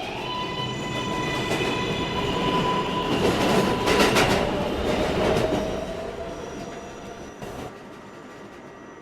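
New York City subway 7 train pulling out of the station. Its motors whine, rising slowly in pitch, and its wheels clack over rail joints as the cars pass about three to four seconds in. The sound then fades as the train leaves.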